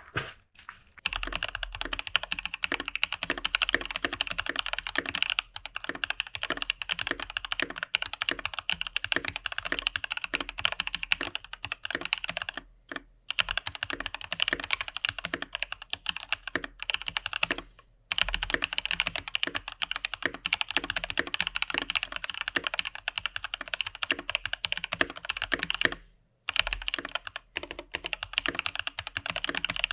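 Typing sound test on an IQUNIX L80 mechanical keyboard with TTC Ace switches: fast, continuous keystroke clacking, broken by a few short pauses.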